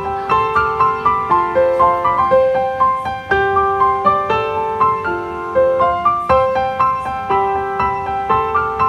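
Background piano music: a gentle melody of struck notes, a few a second, over held lower notes.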